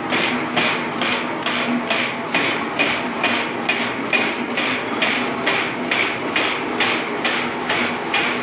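Automatic barbed wire making machine (Accurate AWD047) running, with a steady, regular clacking of about two strokes a second over a low motor hum.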